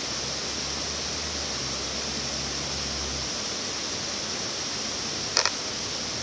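Steady rush of water pouring over a low-head dam's spillway. A sharp double click about five seconds in is the loudest moment.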